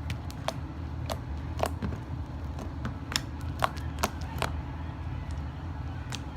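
Slime being stretched and squeezed by hand, giving irregular sharp little pops and clicks, over a steady low hum.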